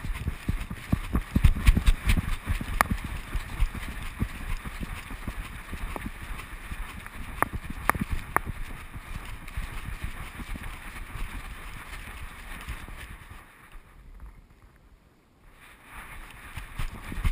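A dog trotting and running on asphalt, heard from a camera strapped to its body: irregular footfalls with sharp claw clicks and low thumps from the harness. The steps go quiet for a second or two near the end, then start again.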